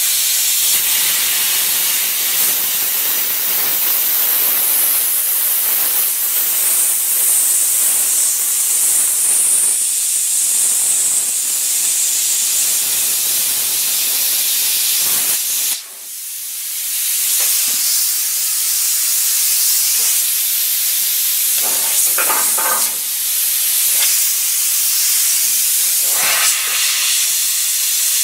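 Hypertherm Powermax 45 air plasma cutter arc cutting through 1-inch steel plate: a loud, steady hiss of the plasma jet. It dips briefly about halfway through, then builds back up.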